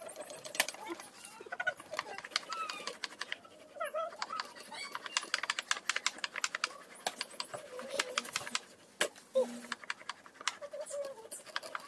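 Cassava roots being grated by hand on metal graters: quick, irregular rasping strokes from two graters at once.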